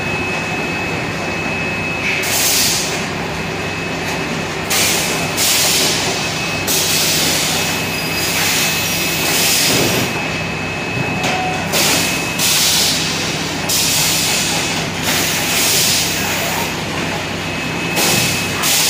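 Bottling-line machinery running: a steady hum and a thin high whine, with short bursts of air hiss coming irregularly, roughly every one to two seconds.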